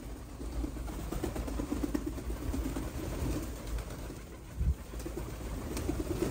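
A flock of pigeons cooing continuously, with wings flapping as birds land and take off. A dull thump sounds once, about four and a half seconds in.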